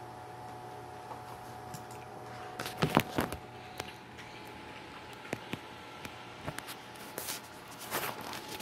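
A dog eating from a food bowl: scattered wet crunches and clicks, with a few louder knocks about three seconds in. Under it runs a steady electrical hum.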